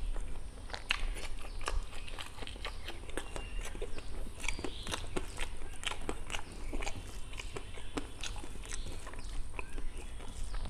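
Close, wet mouth sounds of a person eating rice and black pork curry: chewing with many short lip smacks and clicks.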